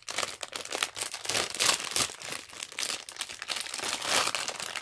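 A thin plastic surprise-toy bag crinkling and rustling in the hands as it is opened, with irregular crackles throughout.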